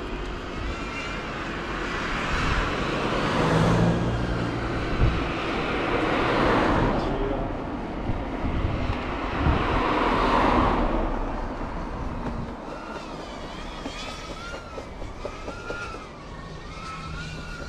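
Cars passing along the road, each one swelling and fading over a couple of seconds, three times in the first eleven seconds. After that it is quieter, with a faint wavering high whine.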